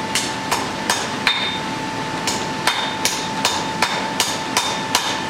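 Blacksmith's hammer striking a red-hot iron bodkin arrowhead on the anvil in a steady rhythm of about two or three blows a second, each blow ringing briefly, with a short pause partway through. A steady high whine runs underneath.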